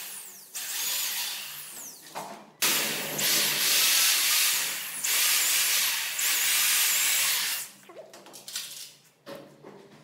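Handheld corded electric drill boring into a hardwood handrail block, running in bursts as the trigger is pulled and released. The longest and loudest run lasts about five seconds and stops sharply about two seconds before the end, leaving only light handling clicks.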